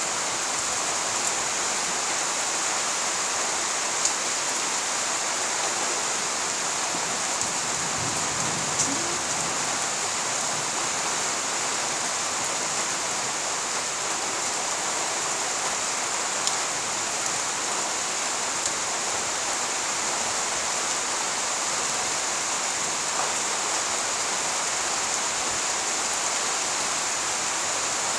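Steady rain falling, with a few sharper drip ticks now and then.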